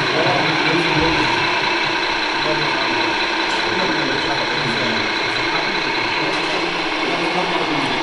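Electric drive and gearing of radio-controlled construction models, a Bell B40D articulated dump truck model among them, running with a steady mechanical whir and gear noise.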